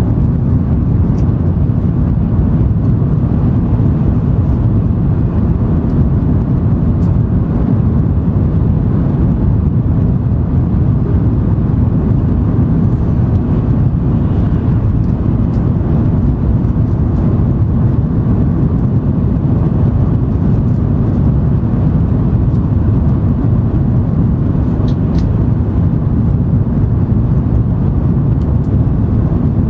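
Interior cabin noise of an N700 series Shinkansen running on the line: a steady, even low rumble of wheels, track and air, with no change in level.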